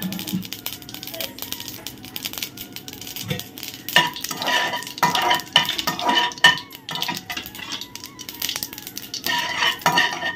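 Long metal spatula stirring and scraping mustard seeds in hot oil in an aluminium kadai, with many small clicks and clinks against the pan.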